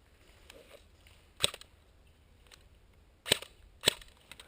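Airsoft gun firing three sharp single shots, one about a second and a half in and two more close together near the end. The gun is most likely the headcam wearer's HFC C96, a gas blowback replica of the Mauser C96 pistol.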